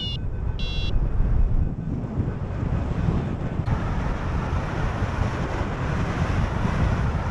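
Airflow rushing over the microphone of a paraglider pilot in flight, a steady low buffeting. In the first second a phone variometer app gives its last couple of high climb beeps, which signal rising air, then falls silent.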